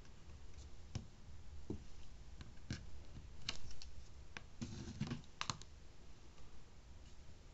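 Scattered light clicks and taps of nail-stamping tools on a metal stamping plate, with a short scrape about four and a half seconds in as a plastic scraper is drawn across the polish-covered design.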